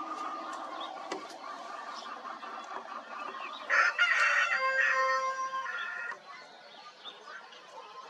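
A rooster crows once, starting about four seconds in and lasting about two and a half seconds, over a background of small birds chirping.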